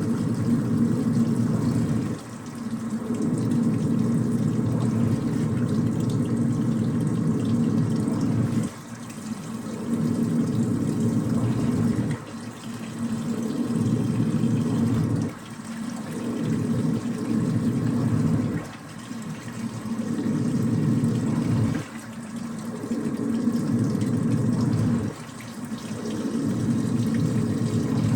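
Washing machine running, its drum churning water-laden laundry in repeated surges. The sound drops off briefly about every three seconds.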